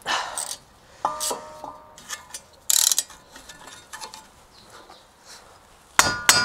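Scattered metallic clinks and knocks of a socket and ratchet being fitted onto a brake caliper bolt, some with a short ring. Near the end, a hand ratchet starts clicking fast, about four clicks a second, as the bolt is turned.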